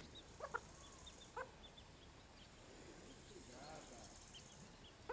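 Miniature Cochin chicks peeping softly: short, high cheeps scattered throughout, with two brief louder sounds about half a second and a second and a half in.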